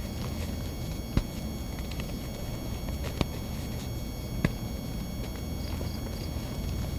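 Dry, gritty reformed cornstarch blocks being crushed and crumbled, with three sharp crunches standing out about a second, three seconds and four and a half seconds in. Under it runs a steady electrical buzz.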